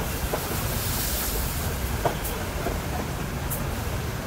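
Water pouring from a square metal container into pots of simmering curry, splashing most in the first half, over a steady low rumble and a few light clinks.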